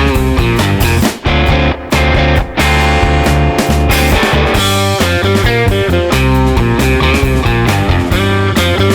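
Background rock music with electric guitar, with a few brief breaks in the first three seconds.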